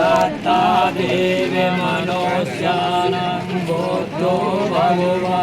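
A voice chanting in long, held, wavering notes over a steady low drone.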